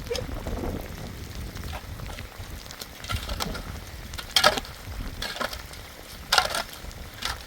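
Steady low rumble with about six short rustling or crackling noises in the second half, the loudest about four and a half seconds in and again near the end.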